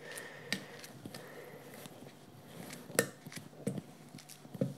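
A few faint clicks and light knocks as a banana is peeled and broken apart by hand over a blender jug; the sharpest click comes about three seconds in.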